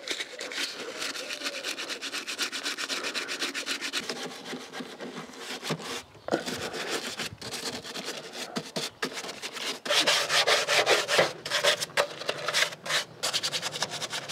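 Stiff-bristled detailing brush scrubbing engine cleaner into the plastic parts of a car engine bay around a fluid reservoir. Rapid back-and-forth strokes, with a few brief pauses.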